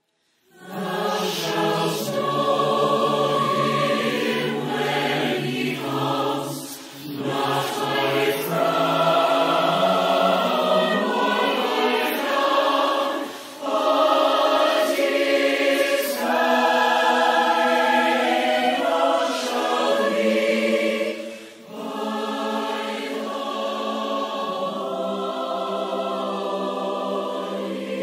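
Large mixed choir of men's and women's voices singing in sustained harmony. The choir comes in just after the start out of silence, and the singing breaks briefly between phrases three times.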